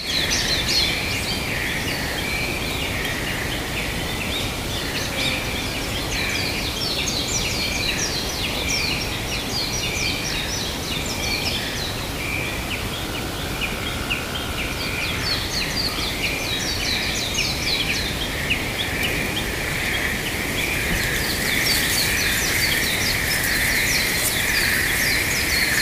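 Many small birds chirping and singing together over a steady background hiss, the chorus growing denser toward the end.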